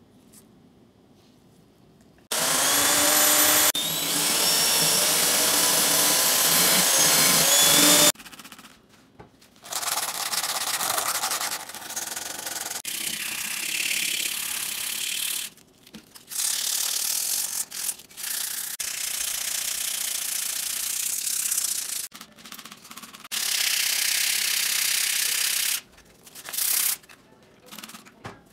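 Hand scrubbing of a rusty steel cleaver blade in a plastic tub: rough rubbing strokes in bursts of a few seconds with short pauses, starting after about two seconds of quiet and squeaking during the first long burst. The scrubbing is taking the rust off the blade.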